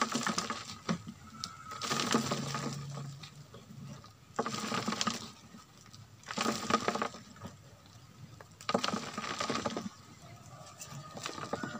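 Crumbly goat manure scraped and pushed by hand from a plastic dipper into the narrow mouth of a plastic jerry can. It comes as repeated rustling, scraping bursts, each about a second long and roughly two seconds apart.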